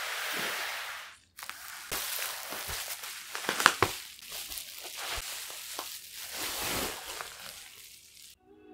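Plastic bubble wrap crinkling and rustling as hands handle and pull it off a boxed phone, with many sharp crackles, the loudest about three and a half seconds in. There is a brief break a little over a second in.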